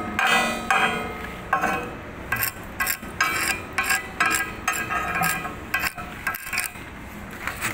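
Hammer striking a fresh MIG weld bead on thick steel plate, to knock the spatter and scale off the seam. The sharp metallic clinks come irregularly, two or three a second, and ring on the steel, getting lighter over the last couple of seconds.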